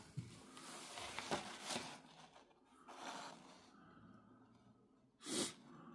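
Quiet room with faint handling noise in the first two seconds as a small speaker is set down on a wooden table, and one short breath-like exhale a little after five seconds.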